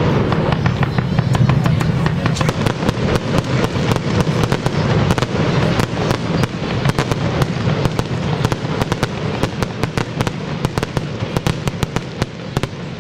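Aerial fireworks bursting: a dense run of sharp crackling reports, many a second, with louder bangs among them, easing off a little near the end.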